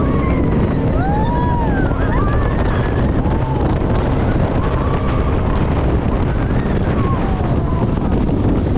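Jet boat running at speed on the river: a steady rush of engine, water jet and spray, with heavy wind buffeting the microphone.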